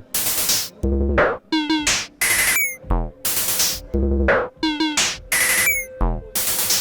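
Dreadbox Dysmetria synthesizer playing an electronic drum pattern: deep kicks, hissing noise hits and short pitched zaps that fall in pitch. A steady drone tone joins about five seconds in.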